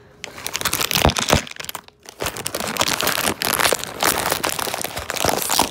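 Foil blind-bag wrapper crinkling and crackling close to the microphone as it is handled and opened, with a brief pause about two seconds in.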